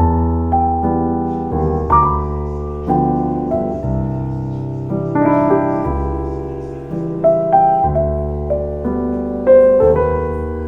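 Background piano music: slow, gentle melody of struck notes over sustained bass chords.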